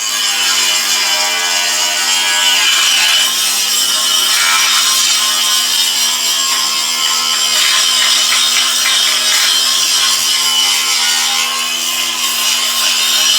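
Power grinder grinding mill scale and rust off old steel down to bare metal ready for welding, a steady motor whine under a loud, continuous hissing grind that starts abruptly.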